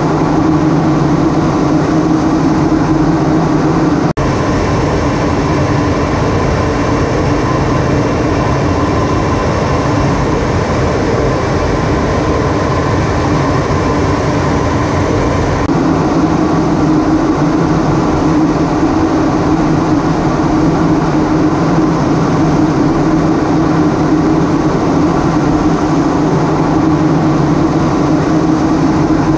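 Steady in-flight noise of a jet aircraft heard from inside its cockpit: a constant engine drone and airflow rush with a few steady hums, broken only by a brief dip about four seconds in.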